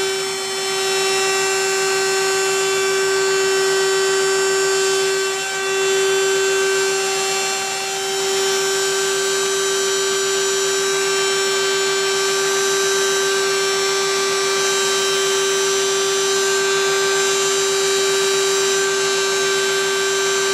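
Four corded trim routers (Kobalt, Makita, Bauer and a cheap no-name) running together at full speed with no load. They make a steady whine, one strong pitch with several higher tones above it, with only slight brief dips in level.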